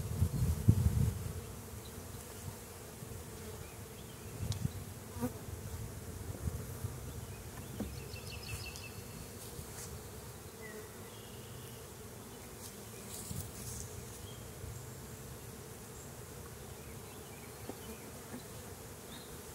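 Honeybees buzzing steadily around an open hive, with a few faint knocks mixed in.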